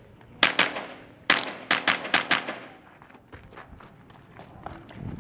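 .22 rimfire rifle fired in quick pairs, about eight sharp shots within the first two and a half seconds. After that come only fainter ticks.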